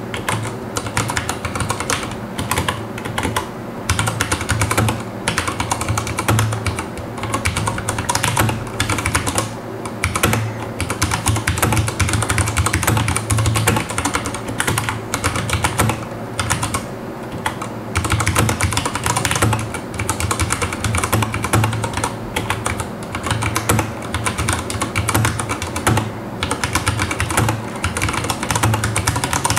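Continuous fast typing on an Akko 3087 mechanical keyboard with Cherry MX brown switches: a dense, unbroken run of keystroke clicks at about 53 words per minute.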